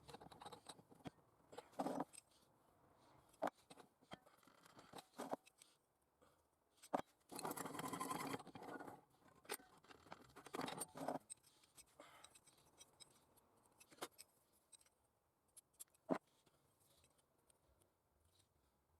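Quiet handling noises: scattered sharp clicks and knocks, with a scraping, rustling patch lasting a second or two about seven seconds in and a shorter one a few seconds later.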